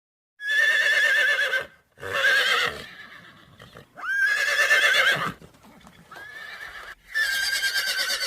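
Horse whinnying: four loud, quavering neighs in a row, each about a second long, with short gaps between them.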